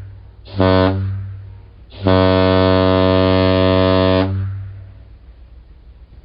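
Mid-size boat air horn honking: one short blast, then one long blast of about two seconds, each dying away in a light echo.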